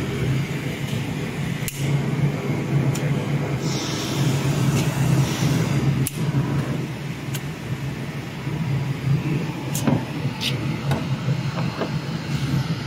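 A steady low machine hum, with scattered light clicks and taps as the stud welding gun's metal parts are handled.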